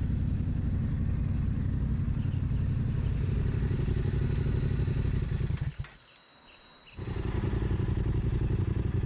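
Yamaha Ténéré 700's parallel-twin engine idling steadily. The sound drops away for about a second just past the middle, then picks up again.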